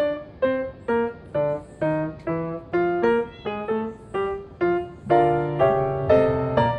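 Background piano music: a melody of single struck notes, about two a second, with fuller chords from about five seconds in.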